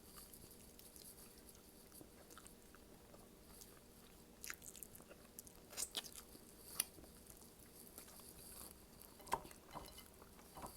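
Faint close-up chewing and eating sounds, with a handful of short sharp clicks from about the middle on.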